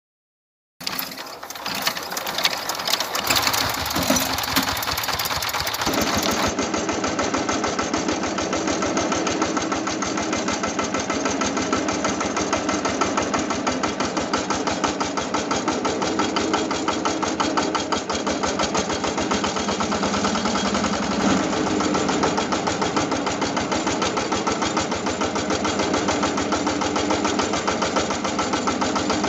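Small engine running steadily with a fast, even chugging beat, starting abruptly about a second in.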